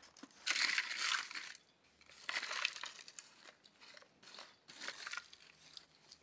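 Hands spreading and pressing moist potting mix into the cells of a plastic seed-starting tray: gritty rustling scrapes, loudest in a stretch about half a second in, again briefly about two seconds in, then lighter rustles.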